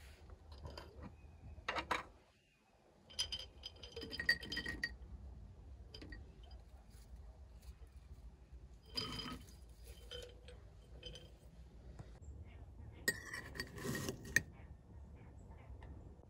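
Glass and crockery clinking lightly, with spoons against bowls and jars as a granola breakfast is dished up. The clinks come in a few scattered clusters, and some of them ring briefly.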